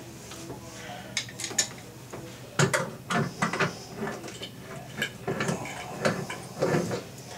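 Irregular clinks, knocks and scrapes of hand tools and drain parts under a bathroom sink as the drain fittings are worked loose.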